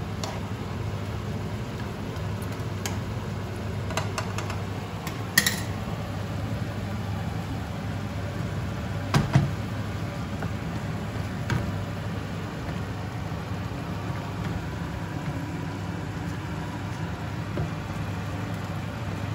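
Stir-fry cooking in a nonstick frying pan on a gas hob: a steady low hum throughout, with a few knocks and scrapes of a wooden spatula and a spoon against the pan, the loudest about five and nine seconds in.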